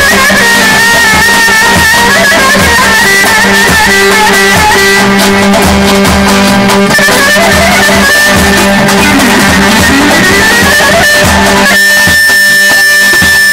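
Live Turkish folk dance music: a clarinet playing a winding melody over a steady keyboard drone, with darbuka and davul drums beating the rhythm. Near the end the drums drop back and a single high note is held.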